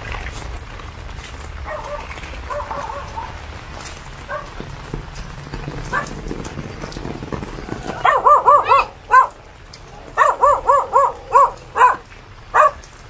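A dog barking in quick runs of short barks, starting about eight seconds in, over a steady hiss of rain.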